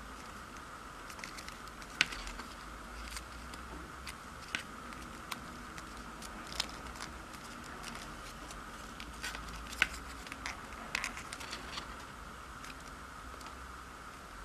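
Origami paper crinkling and crackling as it is folded and creased by hand, in scattered short sharp clicks; the loudest come about two seconds in and near ten seconds, over a steady background hum.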